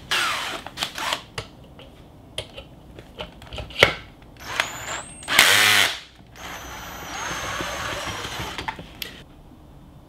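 Clicks and knocks as a cordless drill is fitted onto the shaft of a DIY ceiling-fan alternator, then the drill motor starts up in two short bursts, the second the loudest, and runs steadily for about three seconds, spinning the alternator, before stopping.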